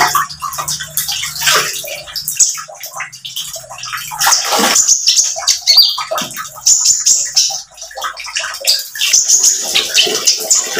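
Male Van Hasselt's sunbird (kolibri ninja) singing in runs of high, rapid twittering notes over trickling running water.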